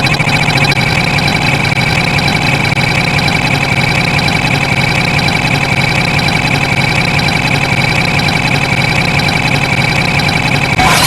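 A loud, steady, engine-like drone with a constant high whine, unchanging throughout.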